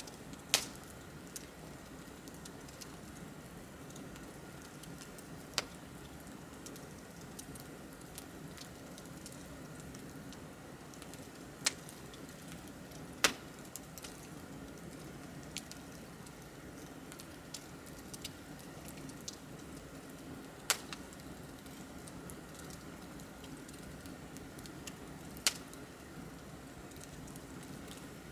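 Wood bonfire crackling: a steady low rustle of burning with sharp pops and snaps every few seconds, about six of them loud and many smaller ticks between.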